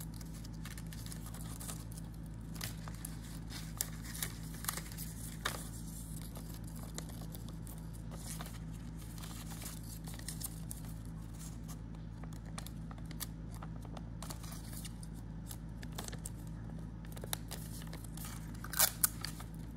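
Paper and sticky tape being handled: rustling, crinkling and small scattered clicks as a paper craft is folded and its sides taped together, with a short louder burst of crinkling near the end. A steady low hum runs underneath.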